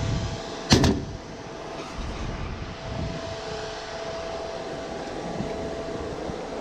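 Steady mechanical drone of the aerial ladder truck's engine running, heard from up on the ladder, with one sharp knock just under a second in.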